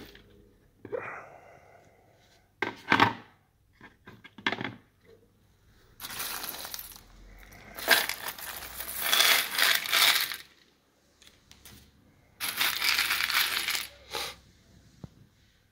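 Small metal double-cap rivets poured from a plastic bag into a beech-wood tray, rattling and clinking in long cascades, the main pour from about six to ten seconds in and a shorter one near the end. Before the pour, a few sharp knocks from handling.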